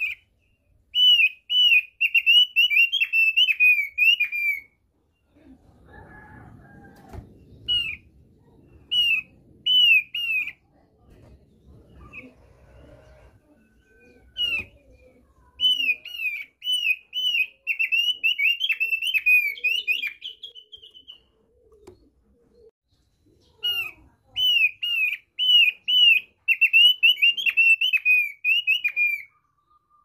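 Thick-billed white-eye (opior paruh tebal) singing: phrases of clear, down-slurred whistled notes repeated about four or five a second, each phrase lasting a few seconds, with single notes scattered in the pauses between.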